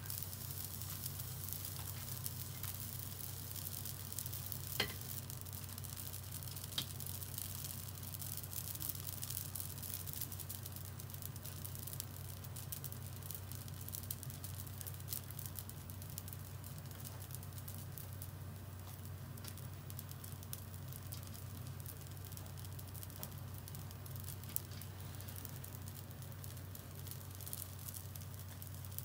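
Yaki-manju buns grilling, their miso glaze sizzling with a steady fine crackle and a couple of sharper pops about five and seven seconds in. A steady low hum runs underneath.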